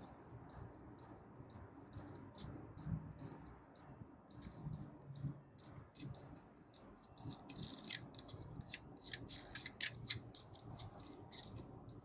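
Faint, irregular series of short clicks and snips from hand tools at work on the wiring, about two a second at first and coming quicker and closer together from about seven seconds in.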